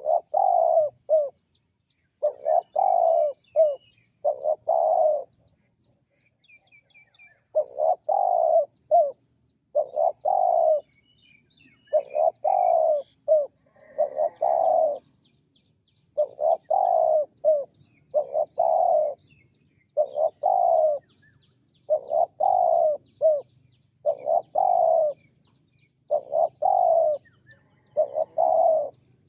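Spotted dove cooing: short phrases of a few low notes, repeated about every two seconds, with a longer pause about a fifth of the way in. Faint chirps from small birds come in between the phrases.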